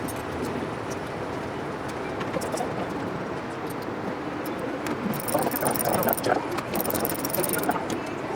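Steady background noise, with a stretch of irregular mechanical clicking and clattering from about five seconds in until near the end.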